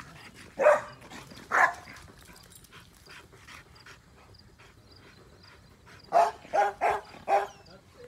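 A dog barking: two single barks in the first two seconds, then after a pause a quick run of four barks about six seconds in.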